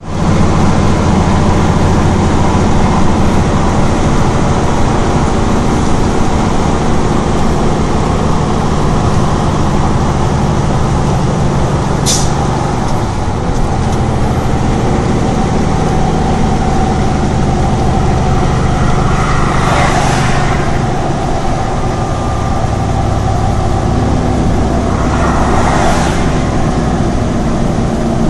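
A Kenworth K200's 600 hp Cummins six-cylinder diesel running under load, heard from inside the cab, as the driver works up through the 18-speed Road Ranger gearbox. The engine note shifts as gears change. There is a short sharp hiss about twelve seconds in, and longer hisses about twenty and twenty-six seconds in.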